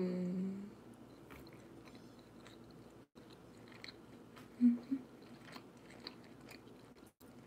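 A person chewing a bite of homemade avocado cheeseburger with her mouth closed, with faint scattered mouth clicks. A short hummed sound comes at the start, and two brief voiced blips about halfway through are the loudest moment.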